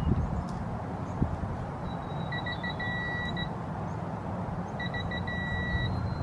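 Electronic beeping, twice: a few quick short beeps running into one long tone, about two seconds in and again about five seconds in. This is the pattern of a digital torque wrench signalling that it has reached its set torque, here 22 foot-pounds on the wheel fastening.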